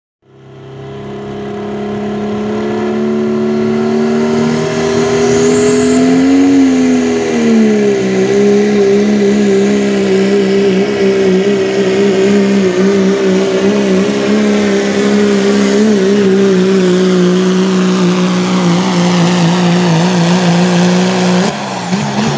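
Dodge Ram pickup's Cummins diesel engine running flat out under load while pulling a sled: a steady deep engine drone with a high whistle that climbs about six seconds in and then holds. Near the end the throttle comes off, the whistle cuts out and the engine pitch falls.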